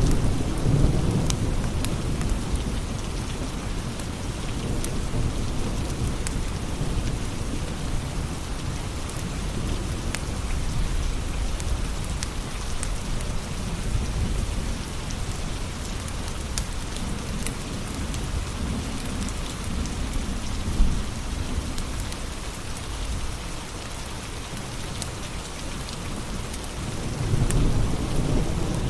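Steady rain with low rolling thunder that swells about a second in and again near the end, over scattered sharp crackles of a wood fire, one louder snap about three-quarters of the way through.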